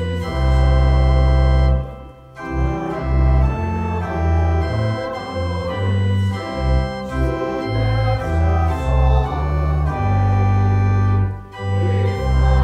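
A church organ playing slow, sustained chords over a deep bass line, moving to a new chord every second or so. The sound briefly drops away about two seconds in and again near the end.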